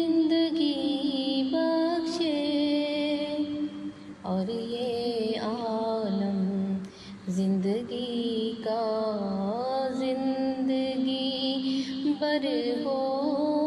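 A woman singing a naat, unaccompanied by instruments, in long held notes that waver and glide from pitch to pitch over a steady low drone.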